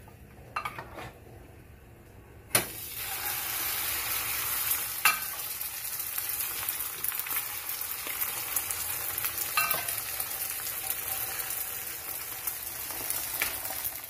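Beaten egg with broccoli hits hot oil in a nonstick frying pan about two and a half seconds in and starts sizzling loudly, then frying steadily, with a few light metallic clicks.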